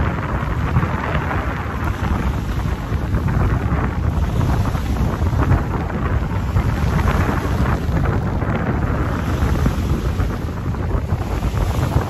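Strong wind buffeting the microphone, a steady low rumble, with waves splashing against the rocky shore beneath it.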